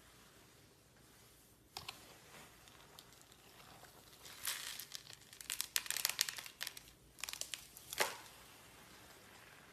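Clear slime being squeezed and stretched by hand, giving sharp crackling pops and clicks: a couple of clicks about two seconds in, a dense run of crackles in the middle, and one loud snap near the end.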